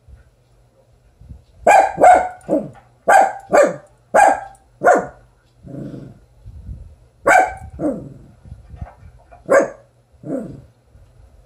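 Small dog barking at a lizard outside the window: about ten sharp barks in two runs, starting under two seconds in, with a short lull of softer, lower sounds around six seconds.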